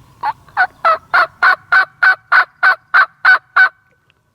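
Hunter's turkey call run through a series of about twelve loud, evenly spaced hen yelps, about three a second, each note breaking from a low to a high pitch, used to locate a gobbler and make him answer.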